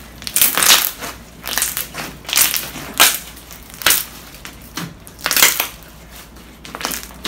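Homemade slime squeezed and stretched by hand: air bubbles popping and crackling in irregular bursts about once a second.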